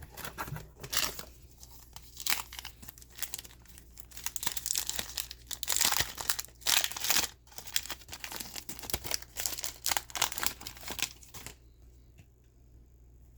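Wrapper of a football trading-card pack being torn open and crinkled by hand, an irregular run of crackling rustles that stops near the end.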